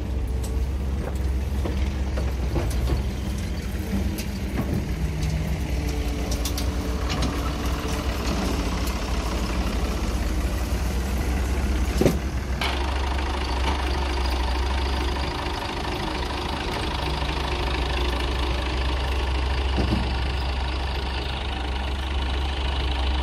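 Massey Ferguson 260 Turbo tractor's diesel engine running steadily at idle, with a deep, even hum, and a single sharp knock about halfway through.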